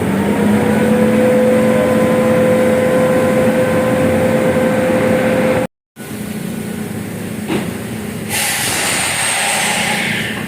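Steady vehicle running noise with a held tone through it. It cuts out abruptly about halfway, then resumes with a sharp click and a rising hiss near the end.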